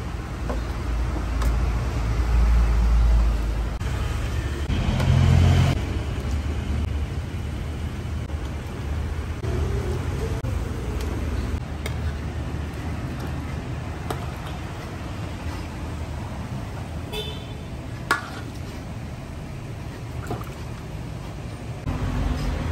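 Street traffic rumbling past, loudest in the first few seconds, with a brief high toot about three-quarters of the way through. A single sharp knock comes just after it, and faint clinks of a steel ladle against an aluminium wok and serving tray run under the traffic.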